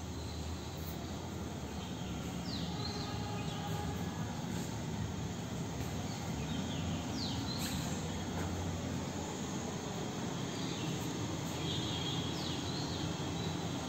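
Steady outdoor background noise of a built-up neighbourhood: a low rumble and hum, with a few short high chirps about every five seconds.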